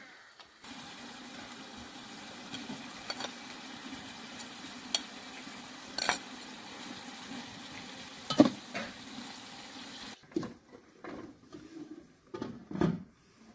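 A large pot boiling hard with a steady hiss, with a few sharp clinks of the pot lid and a knife against a plate. Near the end the hiss stops and several separate knocks and clatters follow.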